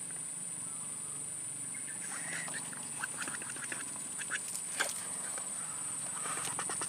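Soft splashes, plops and gulping from a small water-filled hole as a lembat catfish takes the bait and churns the surface. It starts about two seconds in as scattered small clicks and plops, over a steady high-pitched whine.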